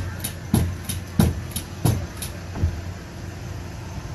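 Pogo stick bouncing on a stage floor: a thump with a sharp click about every two-thirds of a second, five bounces, stopping about two and a half seconds in.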